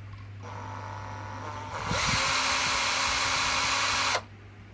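Hitachi FDS 12DVC 12 V cordless drill running in reverse with no load. The variable-speed trigger first runs it slowly from about half a second in, then at full speed from about two seconds in, and it stops just after four seconds.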